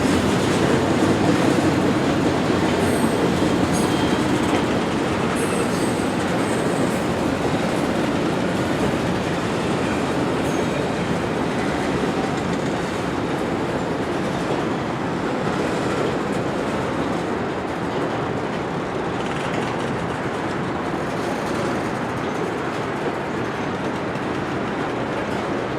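Canadian Pacific freight train rolling steadily past, steel wheels clattering over the rail joints, with a few faint high wheel squeals in the first several seconds.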